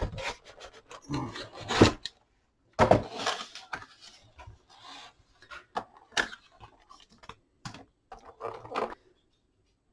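Scan tool's cardboard box being opened and its packaging and contents handled: irregular rustling, scraping and clicking in uneven bursts, stopping about nine seconds in.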